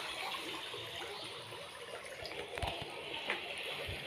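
Steady rushing water sound from underwater footage, an even hiss with two short low thumps in the second half.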